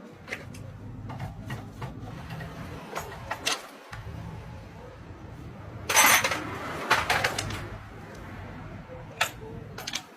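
Metal tools and parts clinking and knocking together in irregular sharp taps, with the loudest clatter about six seconds in.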